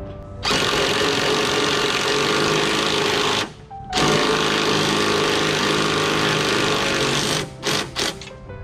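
Cordless impact driver rattling as it drives bolts on a Humvee tailgate hinge: two long runs of about three seconds each, then two short blips near the end.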